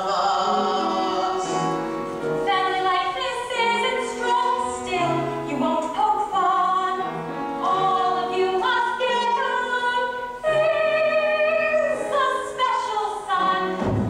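Young cast members singing a stage-musical song, several voices together.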